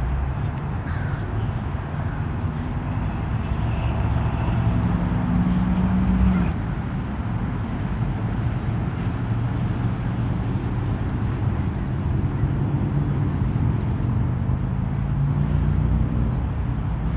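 Steady low rumble of road traffic, with a few faint bird calls above it.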